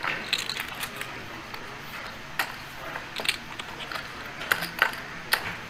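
Scattered sharp clicks of clay poker chips being handled at the table, a few at a time, over a low steady background hum.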